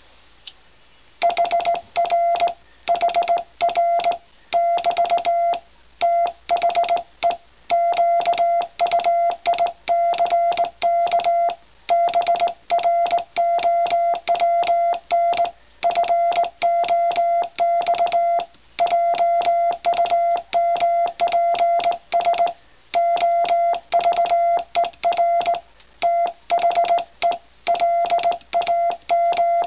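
Morse code sent by hand on a Hi-Mound HK-807 straight key: a steady mid-pitched side-tone beep from a keying oscillator, switched on and off in short dots and longer dashes, starting about a second in, with a click at each stroke.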